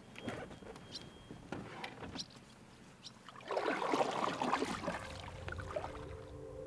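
Knocks and bumps of a canoe hull and gear as a paddler climbs in from a wooden dock, then a louder swash of the paddle pushing off through the water about three and a half seconds in. Soft ambient music with held tones comes in near the end.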